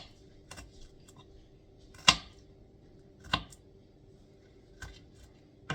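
Kitchen knife striking a cutting board while slicing onions: a few separate sharp chops, the loudest about two seconds in and another a little over three seconds in, with fainter knocks between.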